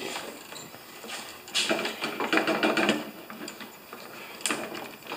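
The Husqvarna snow thrower's small two-stroke engine being started, giving an uneven mechanical clatter. It is louder for about a second and a half from roughly 1.6 s in, and again briefly near the end.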